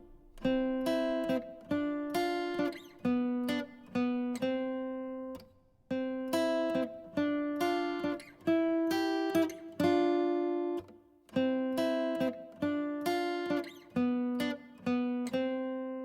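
Background music: an acoustic guitar picking out a gentle melody of plucked notes and chords, each ringing and fading, a new one roughly every half second.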